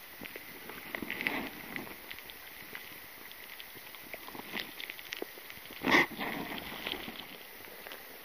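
Small splashes, drips and lapping of river water around a large brown trout held at the surface, with a louder splash about six seconds in.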